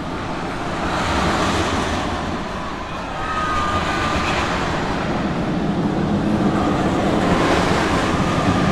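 Katapul shuttle-loop roller coaster train rushing along its steel track through the loop. It makes a rumbling rush that swells about a second in and grows louder again after about three and a half seconds.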